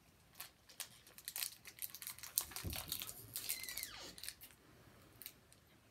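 Crinkling and tearing of a foil Pokémon booster-pack wrapper being handled and opened, as a run of quick crackles. A brief falling squeak comes about three and a half seconds in.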